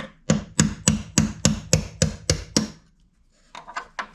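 Hammer blows driving a steel pin out of a GM car door hinge: about ten sharp metallic strikes at roughly three a second, then a few lighter taps near the end.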